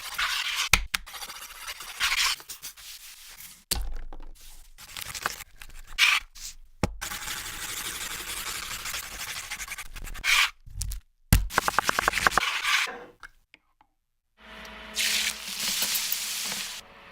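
Close-miked food preparation sounds in quick edited cuts: rubbing and scraping noises broken by sharp knocks and clicks. Past the middle comes a quick run of about ten ticks a second, then a brief silence before a last stretch of scraping.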